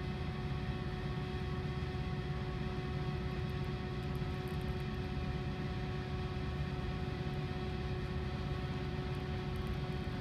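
Steady hum of a boat's engine, a constant low drone with a couple of fixed steady tones above it and no separate events.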